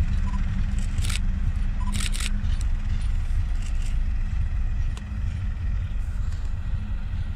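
A diesel-hauled freight train with a special heavy-load wagon rolling away along the track: a steady low rumble with a held engine hum, a few sharp metallic clacks from the wheels in the first couple of seconds, and a drop in level about five seconds in as it recedes.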